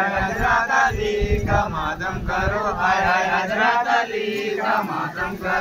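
Voices chanting together in short phrases, with a low rumble underneath.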